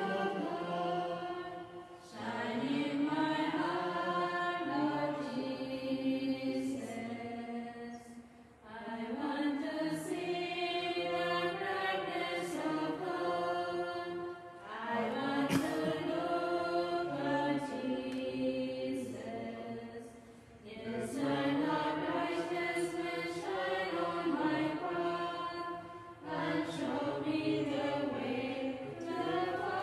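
A small group of nuns singing a hymn together without instruments, in phrases of about six seconds with a brief pause for breath between each.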